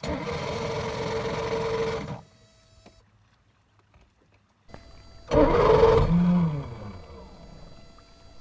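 Bass boat outboard motor being cranked in two short bursts, each with a steady whine over a rough rumble and stopping abruptly. During the second burst the pitch falls away as it dies down. The motor is failing to start, which the owner suspects is a bad fuel pump.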